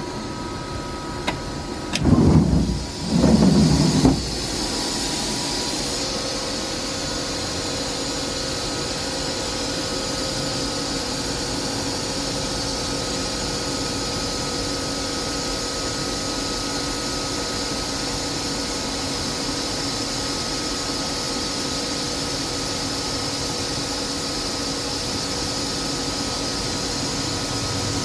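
FANUC Robodrill vertical drill/tap machining center running: a steady mechanical hum with a few steady tones and a high hiss. A couple of clicks come first, then two loud short bursts of noise about two to four seconds in, and then the machine runs on steadily.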